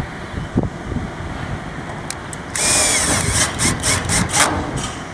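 Cordless drill driving a roof screw through a steel mounting bracket into a corrugated metal roof. The drill runs in a short burst about halfway through, followed by a quick run of clicks.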